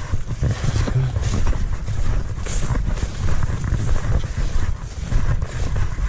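Wind buffeting the microphone: a loud, uneven low rumble that rises and falls in gusts, with a faint hiss above it.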